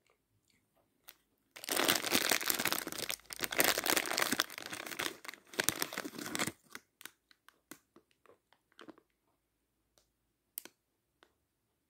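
Plastic wrapper around a block of edible chalk crinkling as it is handled and pulled back, dense and continuous for about five seconds. It is followed by a few separate short crinkles and clicks.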